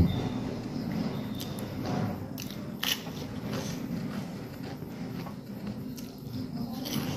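Close-up eating sounds: a person biting and chewing dry beef with rice, with fingers scraping food together on the plate, and a few sharp clicks.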